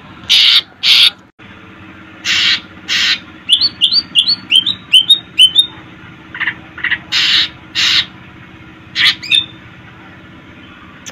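Cucak ijo (green leafbird) singing: loud harsh notes in pairs, and in the middle a quick run of about eight short rising chirps, roughly three a second.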